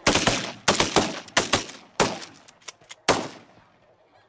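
A rapid volley of shotgun fire from several hunters shooting at flying snow geese: about seven loud shots in three seconds, some overlapping, with a few fainter shots in between, then the firing stops about three seconds in.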